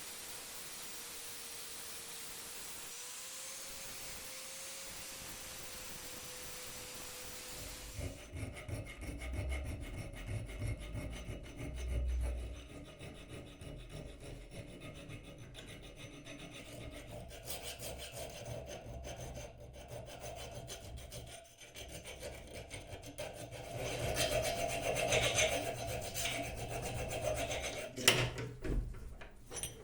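A hand tool scraping and rubbing on wood in uneven strokes, growing louder near the end. The first several seconds hold only a steady hiss.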